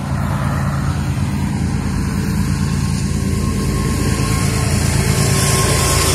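Low, steady diesel engine rumble of an approaching Florida East Coast Railway freight locomotive, growing slightly louder toward the end.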